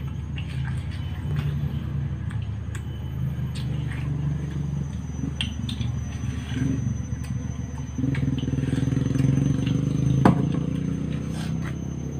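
A motor engine running with a steady low drone that gets louder about eight seconds in and eases off near the end. Small wet bites and chewing of watermelon slices sound over it, with one sharp click about ten seconds in.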